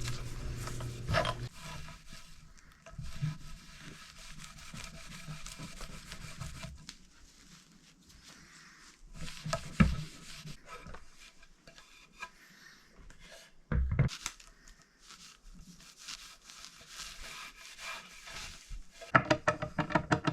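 Cloth rubbing oil into a wooden cutting board, an irregular scraping rub with scattered small clicks, and a couple of low knocks as the board is handled.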